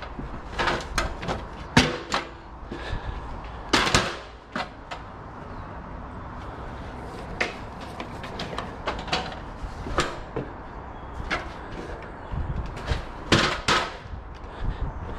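Scattered sharp clicks and knocks at irregular intervals, the sound of hands working a cable up against a timber beam and fixing it in place, with a few louder knocks.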